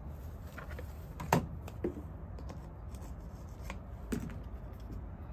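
A screwdriver prying at a black plastic lock mounting plate to pop out a knockout piece: scraping and a few plastic clicks, the sharpest about a second and a half in.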